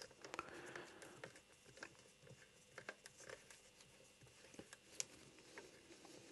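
Faint, irregular small clicks and scratches of fingers handling the plastic case of a Sonos BR100 bridge, with one sharper click about five seconds in.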